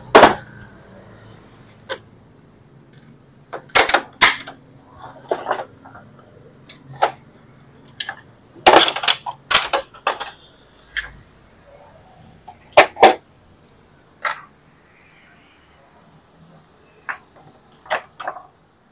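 Irregular clicks, clacks and knocks of plastic and metal parts being handled as an Epson LQ-2190 dot-matrix printer is taken apart, with a few louder knocks among lighter ticks.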